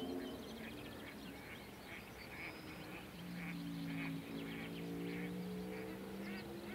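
Wetland chorus of frogs calling, short calls repeating about twice a second, over a low steady drone that slowly shifts in pitch.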